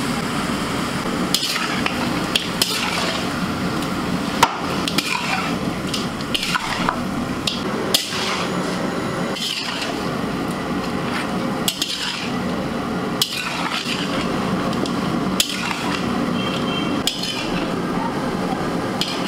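A metal spatula stirring and turning chicken pieces in a large aluminium karahi, scraping and knocking against the pan every second or two, over a steady hiss.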